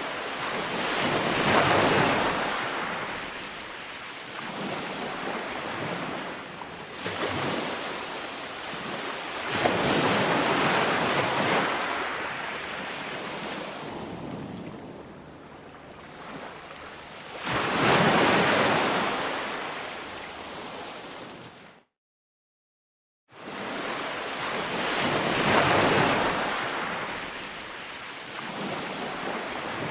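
Ocean waves breaking on a shore, each surge swelling to a loud wash and fading away, about one every eight seconds. The sound cuts out completely for about a second and a half two-thirds of the way through, then the surf resumes.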